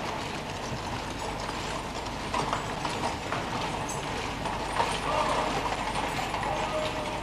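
Horses' hooves clip-clopping on gravel, with the heavy crunch of guardsmen's marching feet and the gun carriage's wheels rolling over it.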